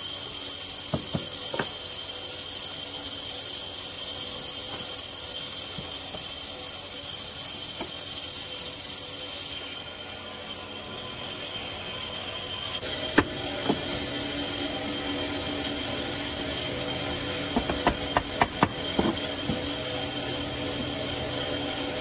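Steady mechanical whirring with a high hiss that cuts off about ten seconds in. In the second half come several sharp knocks, a cluster of them near the end, as a mallet taps the joints of a wooden frame-and-panel assembly together.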